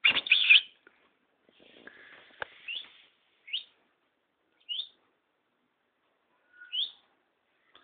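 Small pet songbird chirping: a loud burst of high notes at the start, then short, separate chirps that sweep upward in pitch, one every second or two.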